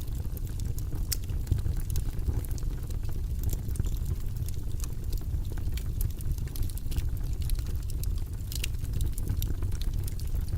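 Wood fire burning in a fireplace: a steady low rumble of flames with many irregular crackles and pops.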